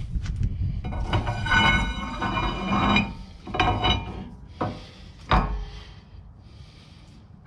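Steel axle shaft sliding into a truck's rear axle tube, metal scraping and ringing for about two seconds, then a few knocks, the loudest about five seconds in, as it goes home.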